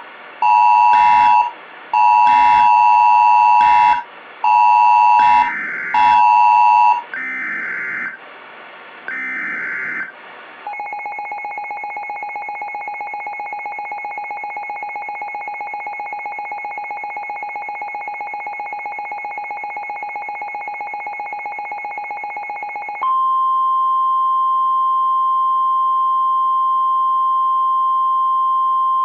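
Mock Emergency Alert System alert tones. First a pulsing beep pattern of stacked tones, about six pulses, then a couple of short burbling data bursts. A long buzzy steady alert tone follows, and about 23 s in it switches to a clean single steady tone like the weather-radio alert tone.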